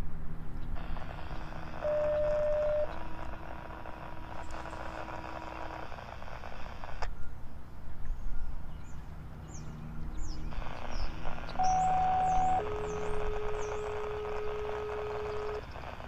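Outdoor background sound: a mechanical or traffic hum with a few steady held tones swells twice, and small birds give quick high chirps about halfway through. No siren wail is heard.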